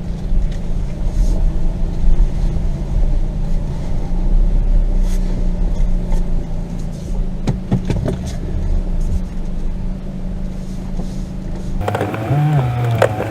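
Small car's engine running at low speed, heard from inside the cabin as it creeps along a rough dirt trail, with a few sharp knocks about two-thirds of the way through. Near the end the sound changes abruptly to one with a wavering pitch.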